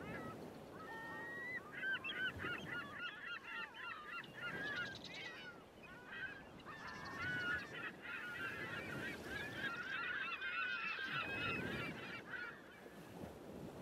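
A flock of birds calling over one another in many short, quick calls, with a brief lull about six seconds in.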